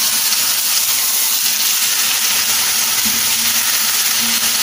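Minced chicken-and-beef patty frying in vegetable oil in a blue-steel frying pan, just flipped onto its raw side: a steady sizzling hiss.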